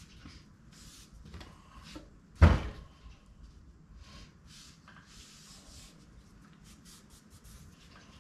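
Short scraping and wiping sounds from cleaning the seal groove of a TH350 transmission front pump by hand, with one loud knock on the workbench about two and a half seconds in.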